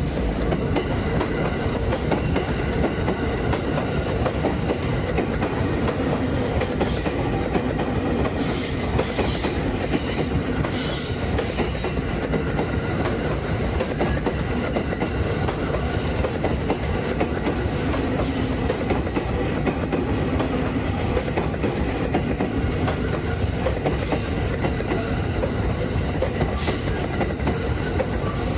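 Train running on the rails with a steady, continuous rumble and the clickety-clack of its wheels, with some brief high-pitched crackles around the middle.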